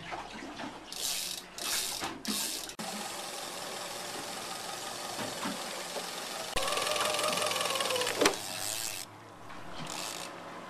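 Boat engine running under way, with steady water and wind noise and short bursts of hiss in the first few seconds. The sound changes abruptly a few times, and for about two seconds in the middle a louder engine note swells and falls back.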